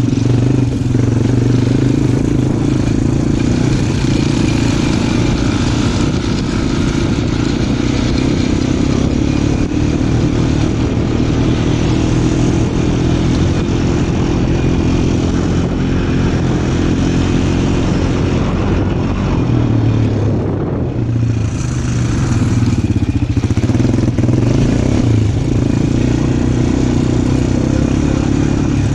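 Small off-road vehicle engine running steadily under way, easing off briefly about two-thirds of the way through and then picking up again.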